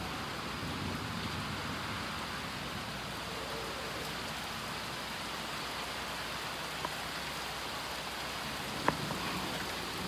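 Steady rain falling in a thunderstorm, with one sharp tick about nine seconds in.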